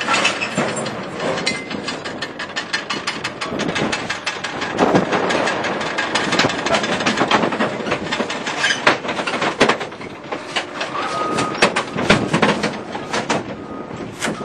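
Mosley guillotine scrap shear running, with sheared pieces of 5052 aluminum clattering out of its discharge chute: a dense, irregular run of metal-on-metal bangs and rattles.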